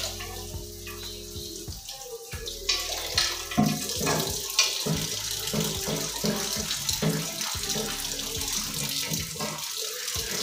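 Tap water running into a stainless steel kitchen sink while an urli, a wide shallow bowl, is washed by hand. The water grows louder a couple of seconds in, and over the next few seconds the bowl knocks and clatters against the sink.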